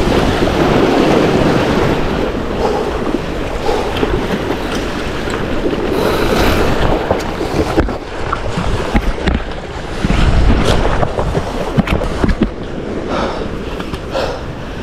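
Sea waves washing and wind buffeting the microphone, with a few sharp clicks or knocks in the second half.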